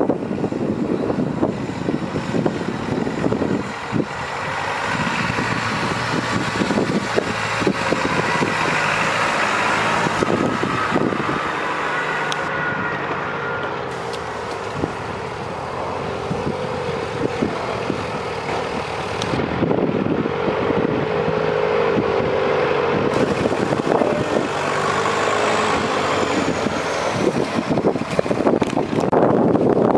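Auverland 4x4's engine working off-road, its revs rising and falling as it climbs and drops over sandy mounds, heard from a distance.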